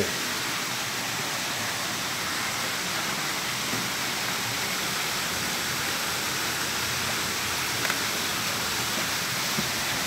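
Steady, even rush of a waterfall and its stream.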